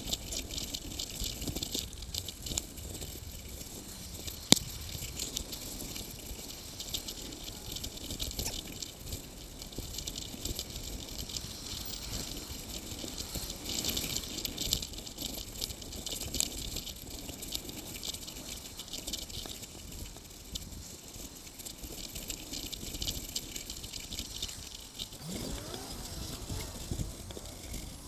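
Bicycle rattling and clicking as it rides along a paved path, a dense run of small rattles with one sharp click about four and a half seconds in.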